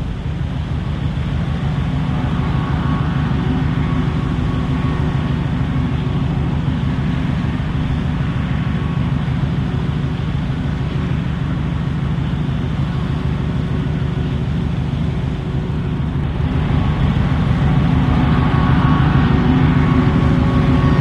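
Deep, steady rumble of a ship's engine, swelling a little louder about three-quarters of the way through.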